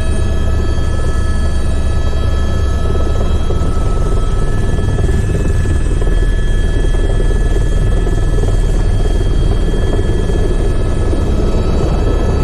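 Helicopter in flight heard from inside the cabin: loud, steady rotor and engine noise with a deep low rumble and a constant high whine.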